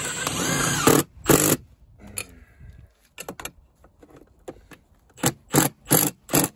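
Cordless drill-driver running a screw through the bottom of an outlet box into house siding, its motor whine stopping about a second in as the screw is driven home. Scattered clicks follow, then four short, loud clatters near the end.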